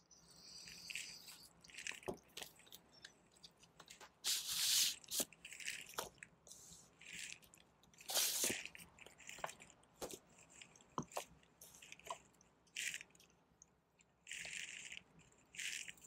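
Plastic shrink wrap being slit and pulled off a vinyl LP jacket, then paper sleeves and inserts sliding out of the jacket. It comes as a run of short crinkling and rustling swishes with small clicks and taps in between.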